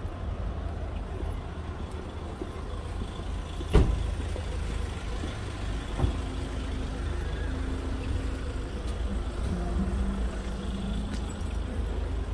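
Road traffic: vehicle engines running along a busy street under a steady low rumble. A sharp knock comes about four seconds in, and a lighter one about six seconds in.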